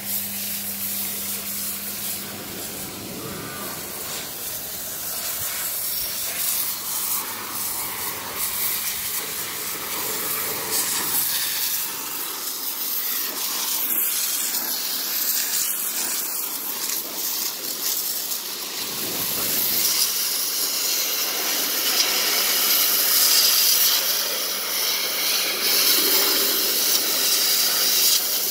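Water jet from a hose spray nozzle hissing as it blasts mud off a walking tractor's steel cage wheels and frame, getting louder in the second half. A low steady hum is heard at the start and stops after a couple of seconds.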